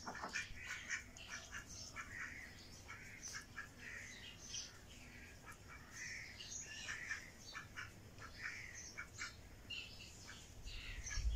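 Mallard ducks quacking repeatedly, with many short high chirps of small birds mixed in. A low rumble comes in near the end.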